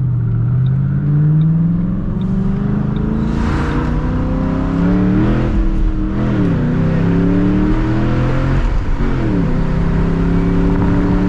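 2007 Mustang GT's V8, fitted with Thumpr cams, accelerating: the engine note climbs in pitch and falls back several times as it is shifted up through the gears, then holds steadier near the end.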